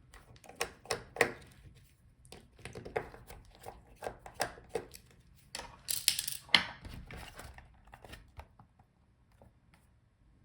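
Hands and small tools working a laptop touchpad out of its plastic-and-metal palmrest: irregular clicks, taps and light knocks, with a brighter burst of scraping or crackling about six seconds in, then it falls much quieter.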